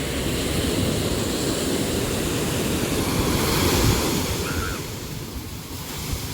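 Sea waves surging, building to a loud break a little under four seconds in and then washing back.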